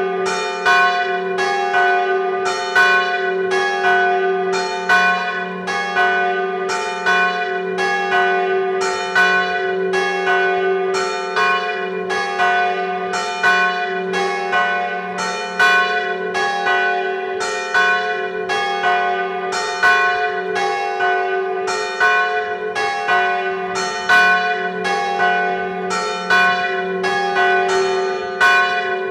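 Church bells ringing a funeral knell (glas): the large bronze bell swinging in full peal, with strokes at different pitches coming in a steady rhythm over the bells' continuous low hum.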